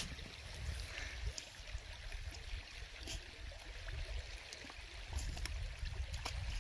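Shallow river water running over rocks, a soft steady rush, with a low uneven rumble underneath and a few faint clicks.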